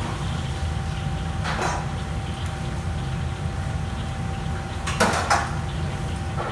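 Kitchenware clattering as a cook handles things: a short clatter about a second and a half in and a louder double clatter about five seconds in, over a steady low hum with a faint steady tone.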